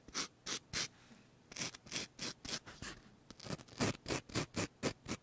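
Short scraping strokes of a razor, as in shaving hair: three strokes, a brief pause, then a run of strokes that quickens to four or five a second.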